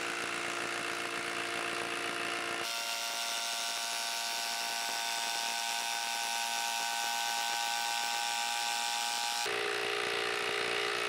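Hilti SID 2-A12 12-volt brushless impact driver hammering steadily as it drives a long screw into dense wood. Its tone shifts abruptly about two and a half seconds in and changes back shortly before the end.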